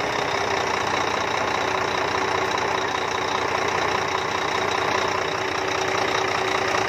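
Volvo FM12 truck's six-cylinder diesel engine idling steadily just after start-up, run with an oil line opened for a pressure test; the oil pressure is not very strong.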